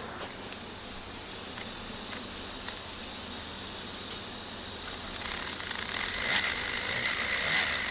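Steady hiss, joined about five seconds in by a faint steady whine from an insulation resistance tester (megger) running an insulation test on the relay.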